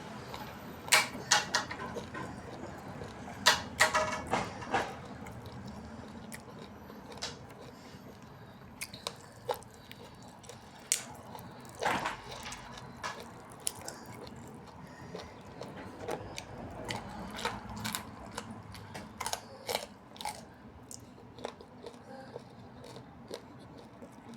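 A person eating a chicken leg close to the microphone: irregular crunchy bites and chewing clicks, more of them in the first few seconds.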